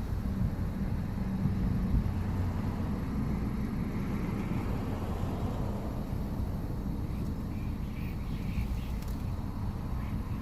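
Steady low outdoor rumble, like distant road traffic, with a few faint short high chirps about eight seconds in.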